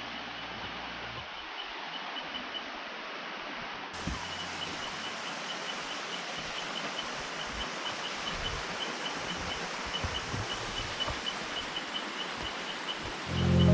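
Steady hiss of rushing water from a stream and waterfall, with a high chirp repeating a few times a second over it. A loud low tone swells in at the very end.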